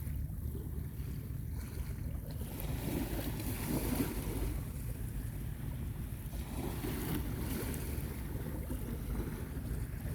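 Sea waves washing onto a beach, swelling about three seconds in and again around seven seconds, over a steady rumble of wind on the microphone.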